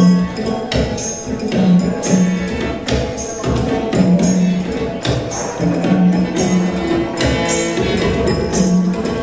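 Dance music starts suddenly and plays on with a steady percussion beat over held notes.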